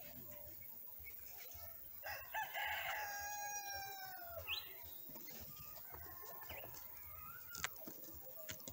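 A rooster crows once, a long call starting about two seconds in whose pitch sags toward its end. A short rising chirp follows, with a few faint chirps later.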